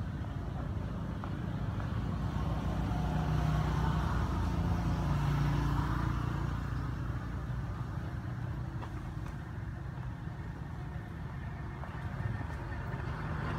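A motor vehicle engine's low drone that swells for a few seconds around the middle and then fades, over a steady low rumble.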